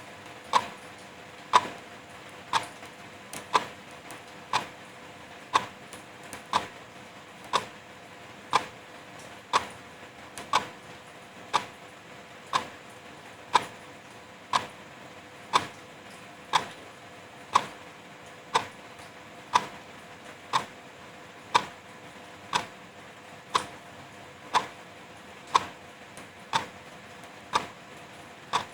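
Wall clock ticking steadily about once a second over the even hiss of light drizzle.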